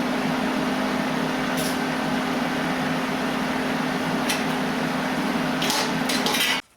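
Steady machine hiss with a hum, interrupted by a few faint clicks, that cuts off suddenly near the end.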